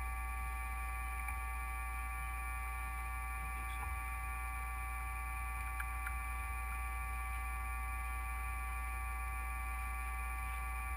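Steady electric hum of a machine-shop motor running without cutting: a low hum with several fixed whining tones above it, and a couple of faint ticks near the middle.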